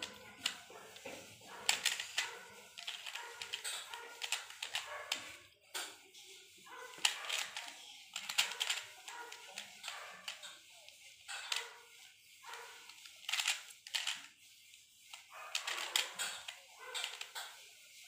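Plastic Pyraminx puzzle being turned fast by hand: irregular runs of sharp plastic clicks as its faces snap round, broken by short pauses.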